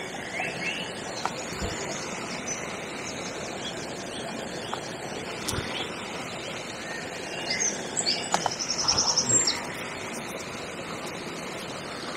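Small birds chirping, with a fast trill from about seven and a half to nine and a half seconds in, over the steady rush of water falling through a canal weir.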